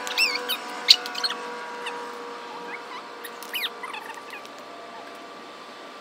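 Background music with held notes fading out, over which come a few short, high squeaky chirps that fall in pitch, and a single sharp click about a second in.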